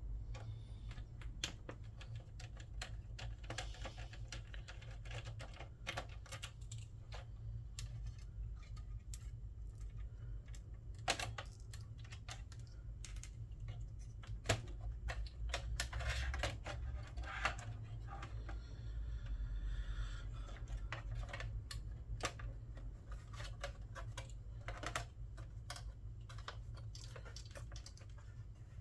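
Irregular small clicks and taps of tools and plastic and metal parts being handled while a PlayStation 3 console is taken apart, with a few short scraping noises partway through, over a steady low hum.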